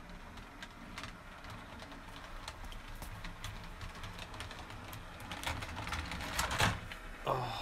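Model railway train running close past on the track: a steady motor hum with rapid clicking of wheels over the rails, growing louder. Partway through, coaches derail and tip over with a clatter.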